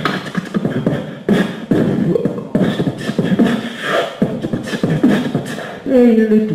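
Beatboxing through a handheld microphone: a quick stream of mouth-made drum sounds mixed with pitched vocal sounds, and a sung note held near the end.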